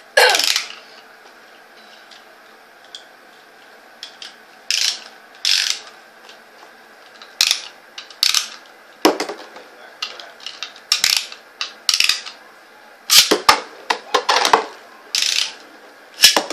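Beyblade ripcord launcher ratcheting: about a dozen short zips as the toothed ripcord is run through the launcher's gear, many rising in pitch, coming closer together in the second half.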